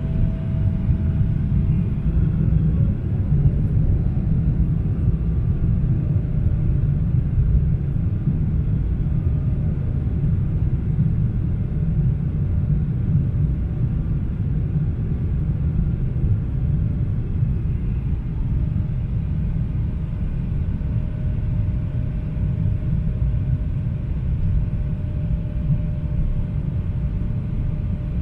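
Steady low rumble of a Boeing 777-300ER airliner heard from inside the passenger cabin, the engines and airflow making an even drone, with a faint steady hum above it at the start and again later on.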